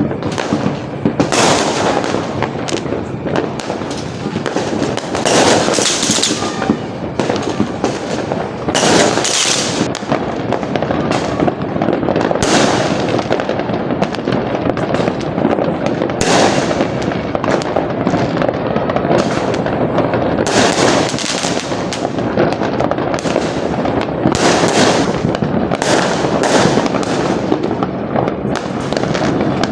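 Fireworks going off without a break: a dense run of bangs and crackling, with louder clusters of bursts every few seconds.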